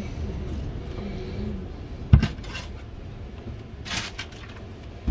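Kitchen utensils and squid being handled at a stainless steel sink: one sharp knock about two seconds in, then a softer, brief clatter near four seconds.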